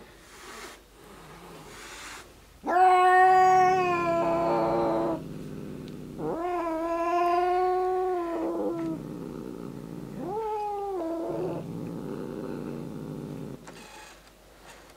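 Domestic cat yowling at another cat in a standoff: three long, drawn-out wails, the first the loudest, with a low rough grumble between them. It is the warning caterwaul of a cornered cat.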